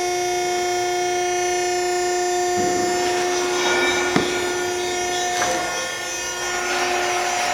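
Steady, constant-pitched machine whine from shop power-tool machinery. About two and a half seconds in, a rough grinding or rubbing noise joins it, with a couple of sharp knocks.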